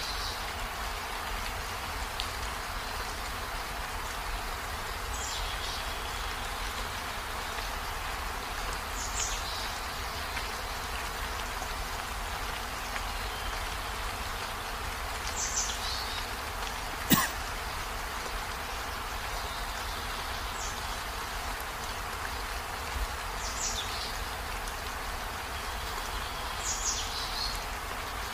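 Steady outdoor hiss with a short, high, falling chirp from a small creature repeating every four to six seconds. A single sharp click sounds about seventeen seconds in.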